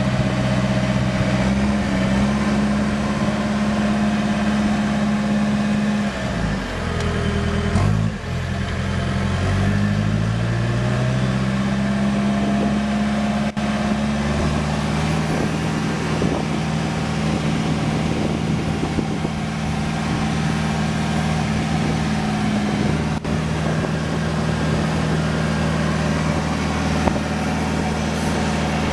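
Backhoe's diesel engine running steadily while the machine is driven. About six seconds in the engine speed drops, then climbs back up over the next few seconds and holds steady again.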